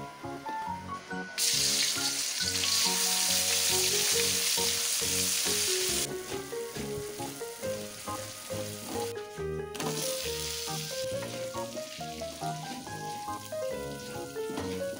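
Food stir-frying in hot oil in a wok: a loud sizzle starts suddenly about a second and a half in, as ground spice paste goes into the oil, and eases off about six seconds in. A softer sizzle returns near the ten-second mark, with background music playing throughout.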